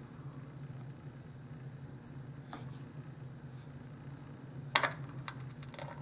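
Low steady hum with a few light clicks and taps near the end, as a nail polish brush cap and its glass bottle are handled.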